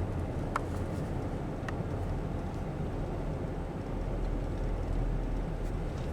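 Pickup truck driving at road speed, heard inside the cab: a steady low rumble of engine and tyre noise, with two faint clicks in the first two seconds.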